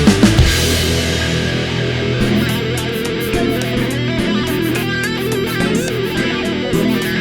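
Background rock music with electric guitar; loud drum hits in the first second give way to sustained guitar.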